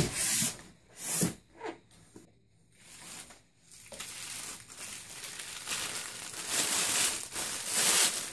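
Plastic bags crinkling and rustling as packed parts are lifted out of a monitor box's polystyrene packing. A few short scrapes come in the first two seconds, then steadier rustling from about four seconds in that is loudest near the end.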